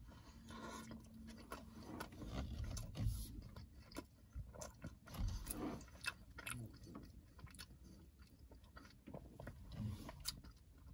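A person biting into a Detroit-style coney dog and chewing it: faint, soft chewing with scattered small mouth clicks.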